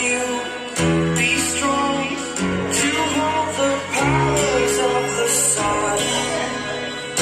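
Pop song with guitar, singing and a steady beat, played over a Bluetooth 2.1 speaker system, the F&D F210X, whose 4-inch subwoofer gives deep bass notes that change every second or two.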